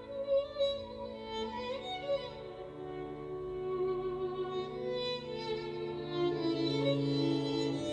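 Violin playing slow, held notes with vibrato, moving from note to note every second or two.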